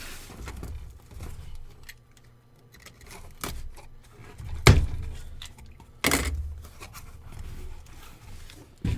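Objects being handled on a tabletop: low scuffs and scrapes with several sharp knocks, the loudest about halfway through.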